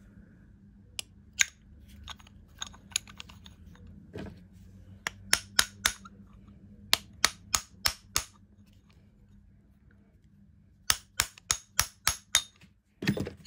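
Sharp metallic taps of a hammer on a pin punch against the steel body of a Starrett No. 657 magnetic dial gauge stand, coming in quick runs of four to seven taps. They are driving out the seized magnet, which is starting to move. A duller thump comes near the end.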